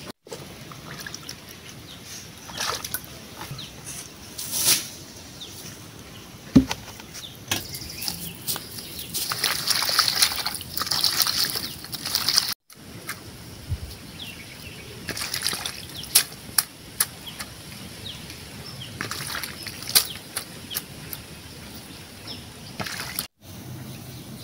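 Hands swishing and squeezing pumpkin leaves in a plastic basin of water: irregular splashing and sloshing, heaviest about halfway through, with a few sharp knocks.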